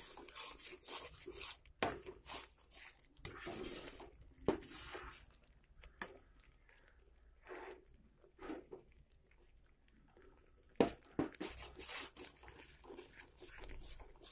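A spoon stirring and scraping thick Mysore pak batter of gram flour, sugar syrup and oil in a pan, in irregular strokes, with a couple of sharp knocks of the spoon on the pan.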